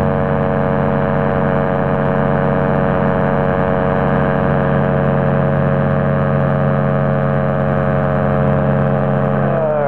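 Rotax 503 two-stroke twin engine and propeller of an Excalibur light aircraft running at steady power in flight, a constant drone with no change in pitch.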